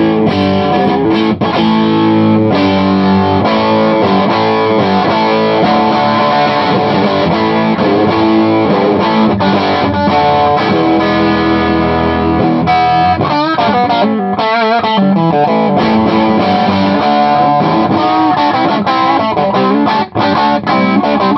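Electric guitar on its humbucker pickup, played through a modified Bell & Howell Filmosound tube amplifier's super lead channel with the volume cranked: distorted chords and riffs with a Marshall-like tone. There are a few bent or vibrato notes about halfway through.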